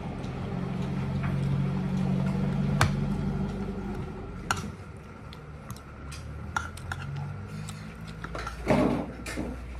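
Metal spoon and fork scraping and clinking against a plate of rice and a ceramic bowl: scattered sharp clicks. Under them, a low hum fades out about four seconds in.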